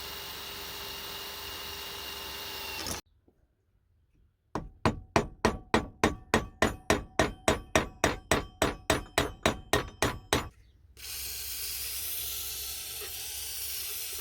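An electric drill runs steadily, then a hammer strikes metal in a fast, even series of about twenty blows, peening over a rivet through a repaired spanner part. Near the end a steady machine noise starts up again.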